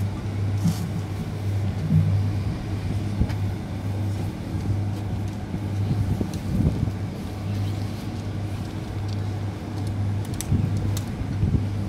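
Outdoor street ambience: a steady low hum that swells and fades over a continuous low rumble like distant traffic, with a few faint ticks near the end.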